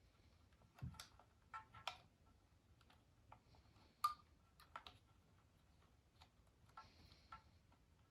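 Faint, irregular clicks and light taps of small hard parts or tools being handled, with a dull knock just before the first second and the sharpest tap about four seconds in.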